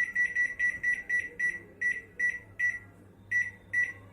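Microwave oven control panel beeping as the cooking time is set: a quick run of short, identical beeps, several a second at first, then spacing out, pausing briefly about three seconds in, then resuming.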